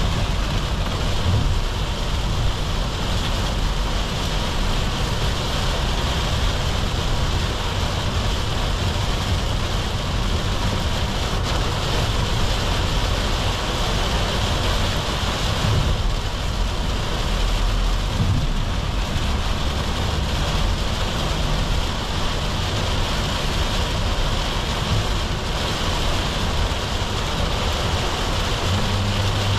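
Cabin noise inside a Volkswagen Caddy V 2.0 TDI van driving in heavy rain: steady rain on the roof and windscreen, tyres hissing on the wet road, and the diesel engine and road rumble underneath.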